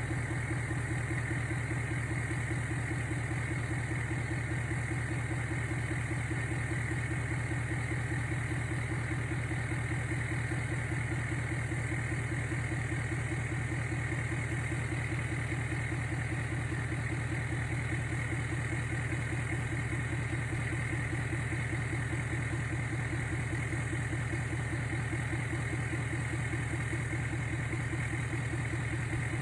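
The engine of a 1948 Thomas bus making a steady, even mechanical drone with a fast regular pulse, unchanged for the whole stretch.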